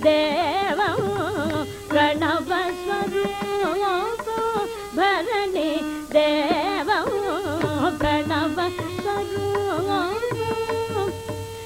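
Carnatic classical music: a melody full of sliding, oscillating notes (gamakas) over a steady drone, with a single deep mrudangam stroke about eight seconds in.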